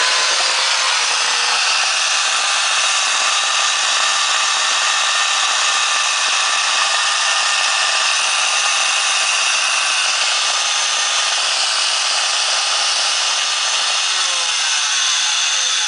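Craftsman 9.5 amp router's motor running at full speed with no load, a steady high-pitched whine with a hiss. A lower tone slides down near the end.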